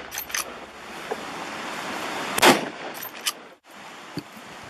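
A single gunshot about two and a half seconds in, fired at a running wild boar, with a few sharp clicks before and after it. Wind rushes on the microphone throughout.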